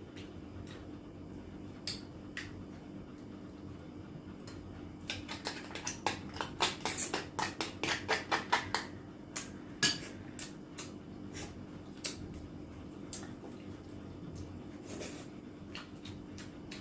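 Cutlery and dishes clicking and clinking while eating, scattered taps with a rapid run of clicks in the middle, over a faint steady hum.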